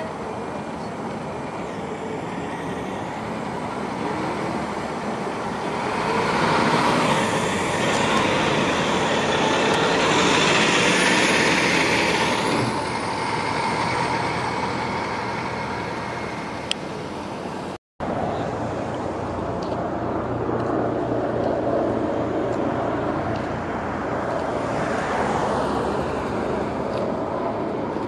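Buses and road traffic going past, with one vehicle passing loudly about six to thirteen seconds in, carrying a faint high whine. A brief break in the sound comes just after halfway, then another vehicle passes near the end.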